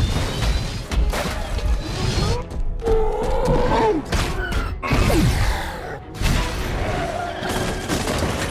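Action-film fight soundtrack: film score music under repeated heavy impacts, crashes and shattering debris, the thuds coming every second or so.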